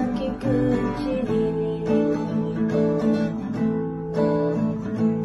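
Music: an instrumental stretch of a song, with strummed acoustic guitar holding chords that change about once a second.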